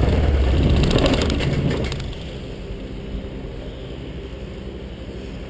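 Cessna 172's piston engine idling, then shut down about two seconds in, clattering briefly as it stops and leaving a lower steady hum.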